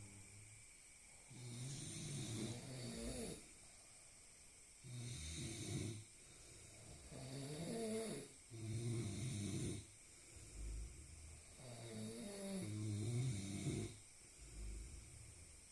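Snoring: a run of drawn-out, rattling snores, each lasting one to two seconds, separated by short quiet pauses and repeating every two to three seconds.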